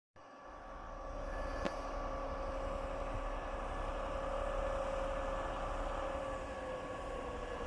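Distant diesel locomotive running at low speed: a steady engine hum that dips slightly in pitch near the end, with a single click a couple of seconds in.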